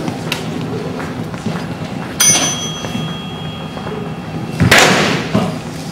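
Practice longswords striking: a sharp clang that rings on for about a second, about two seconds in, then a louder knock near the end with a smaller one just after.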